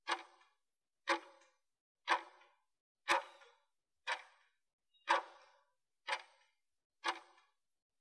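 Clock-style ticking from a countdown timer, one short tick a second, eight ticks in all, marking off the last seconds of the exercise interval.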